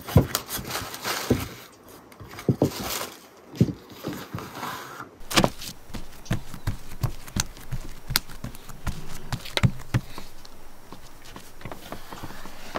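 Irregular soft knocks and taps of dough being worked on a table: a wooden rolling pin rolling and knocking on the tabletop, the sheet of dough being lifted and laid down, then a knife cutting through the dough onto the table.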